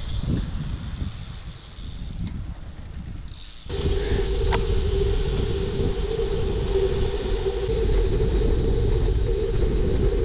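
Wind rushing over the microphone of a camera riding along on a moving bicycle: a loud low rumble with a steady hum, starting abruptly about four seconds in after quieter outdoor sound.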